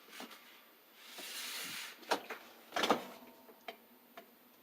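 Drum of an LG WT1501CW direct-drive washing machine turned by hand with the machine off: a soft rubbing swish, then a few short sharp squeaks and ticks. This is the squeak the owner is showing as the machine's fault.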